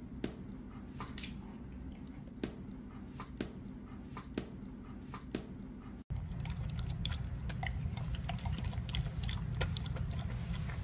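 Faint clicks and light knocks about once a second at first; from about six seconds in, a husky crunching dry kibble from a bowl, a steady run of small crunches.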